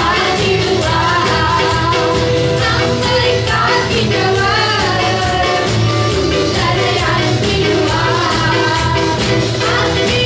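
Congregational worship song: voices singing a melody together over amplified band accompaniment with a steady beat.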